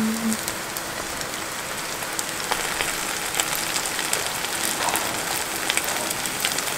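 Seafood pancake (haemul pajeon) sizzling in oil in a frying pan: a steady crackling hiss full of small pops.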